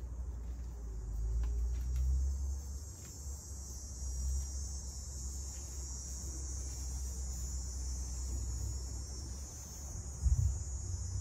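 Steady high-pitched chorus of insects such as crickets, with a low rumble underneath and a thump about ten seconds in.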